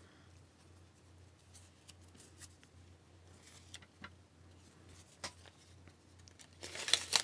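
Paper and a taped mail package being handled: faint scattered clicks and light rustling, then a brief louder crinkle of paper near the end as the note inside is pulled out.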